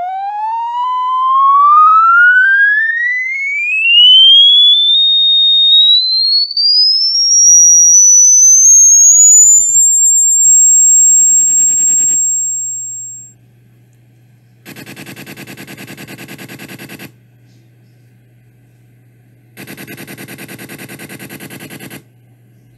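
Electronic test-tone sweep sold as a rodent-repellent sound: a pure whistling tone with faint overtones rises steadily in pitch from a mid whistle to a piercing high squeal over about ten seconds, holds high briefly, then fades. A low electronic hum follows, broken twice by loud bursts of rapid buzzing pulses, each about two seconds long.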